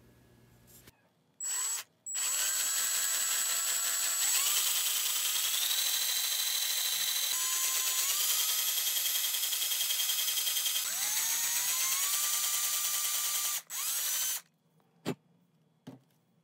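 Handheld power drill with a small twist bit boring a hole into a carved wooden lure body. A short burst, then a long run in which the motor's whine sweeps up in pitch several times as the trigger is squeezed, another short burst, and two sharp clicks near the end.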